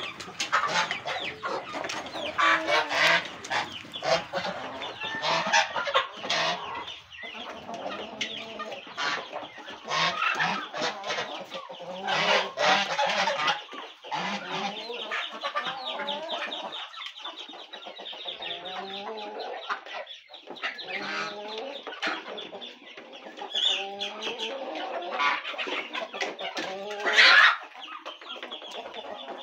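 A mixed flock of chickens and ducks clucking and calling as they crowd round a feed bowl, with many quick pecking and dabbling noises. One loud squawk near the end.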